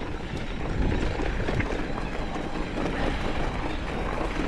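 Mountain bike rolling over a rough, stony trail: tyres crunching on rock with scattered knocks and rattles over a steady low rumble.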